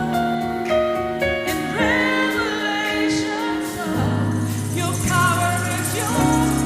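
Live gospel worship music: a band playing held chords under singing, with a sung line that wavers about two seconds in.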